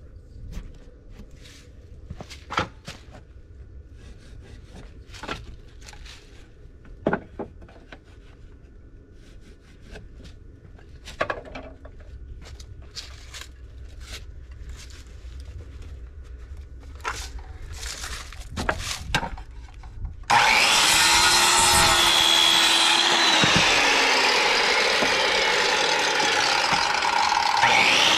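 Faint scattered clicks and knocks of handling gear for about twenty seconds, then a Hitachi circular saw starts abruptly and cuts into a wooden board, running loud and steady to the end. Its motor note dips briefly in pitch a couple of seconds into the cut.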